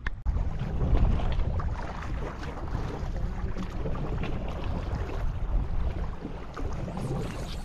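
Wind rumbling on the microphone over choppy sea water sloshing and lapping, a steady noisy wash without any distinct event.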